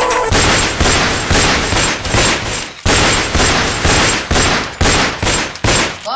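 Handguns fired into the air in a rapid run of gunshots, about three a second, with a short break a little before the middle.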